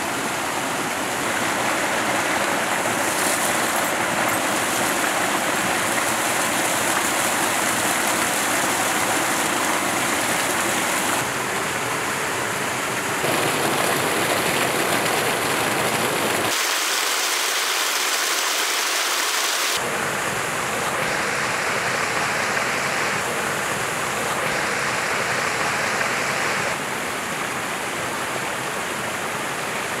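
Small waterfall and rocky stream, a steady rush of splashing water. Its tone shifts abruptly several times and turns thinner, without its deep part, for about three seconds in the middle.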